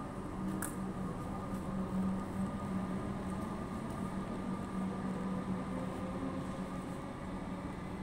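Steady mechanical hum, one low tone with a fainter higher whine above it, with a single light click about half a second in.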